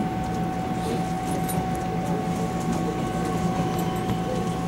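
Onboard running sound of a Taiwan Railways EMU700 electric commuter train moving slowly: a steady rumble with a constant high electric whine held throughout.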